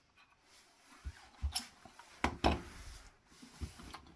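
Tools and parts being handled on a wooden work surface: a few separate knocks and clicks about a second and about two seconds in, with light rubbing and smaller taps between. No motor is running.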